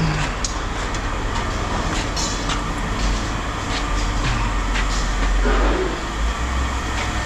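Steady low engine rumble of an idling vehicle, with scattered light clanks and knocks over it.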